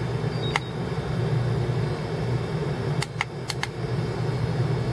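Button presses on a Turnigy Accucel 6 charger as balance charging is started: a click with a short faint beep about half a second in, then four quick clicks about three seconds in. A steady low hum runs underneath.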